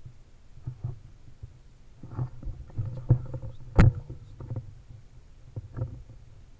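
Handling noise from an air rifle fitted with a scope camera: scattered knocks and rubbing as the rifle is moved and aimed, with one sharp knock about four seconds in.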